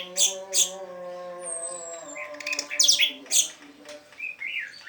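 Orange-headed thrush (anis merah) singing its continuous 'teler' song: quick, sharp high notes in two clusters, one at the start and one around the middle, over a steady low hum.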